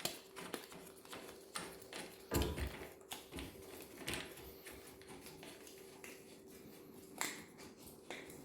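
Pressure-washer high-pressure hose being screwed onto the spray gun by hand: scattered light clicks and knocks of the fittings and hose, with a louder knock about two and a half seconds in and another about seven seconds in.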